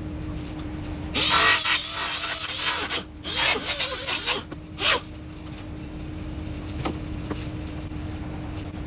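A handheld power grinder runs in three bursts, two of about a second and a half and a brief last one, grinding back a high spot so the carbon fibre bonnet clears. A steady low hum runs underneath.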